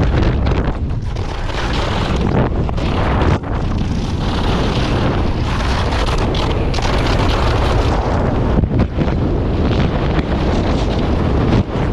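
Heavy wind buffeting on the microphone of a skier's action camera at downhill racing speed, mixed with the rush of skis running on hard-packed snow. It is loud and continuous, dipping only for a moment twice.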